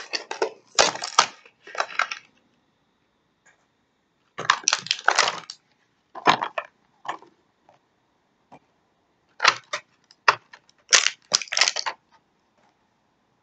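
Stiff plastic blister packaging crackling and crunching in irregular bursts as an action figure is worked out of its shell, with quiet gaps of a second or two between the bursts.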